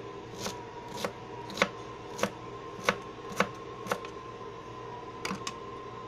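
Kitchen knife chopping celery finely on a cutting board: sharp knocks of the blade on the board at about two strokes a second, pausing about four seconds in, then two quick last strokes.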